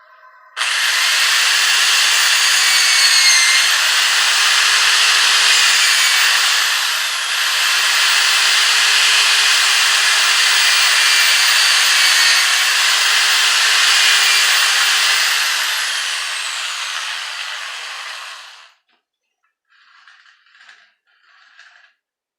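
Compressed air rushing out of an air compressor built from a refrigerator compressor, a loud steady hiss. It starts abruptly under a second in, fades slowly as the pressure drops and stops a few seconds before the end.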